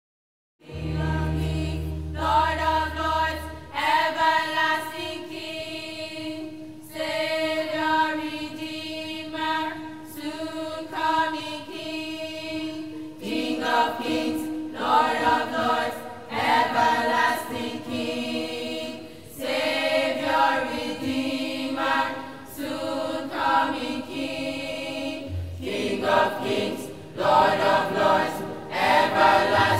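School choir of boys and girls singing together. The singing begins just under a second in, after a brief silence.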